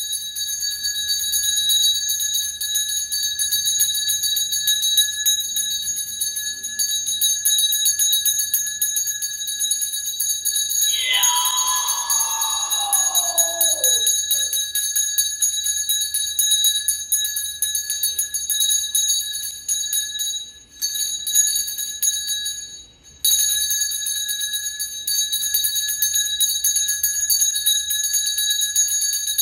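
A brass ritual hand bell is shaken continuously, ringing steadily at a high pitch with rapid strikes. It breaks off briefly twice about two-thirds of the way through. About a third of the way in, a separate long tone falls steadily in pitch over about three seconds.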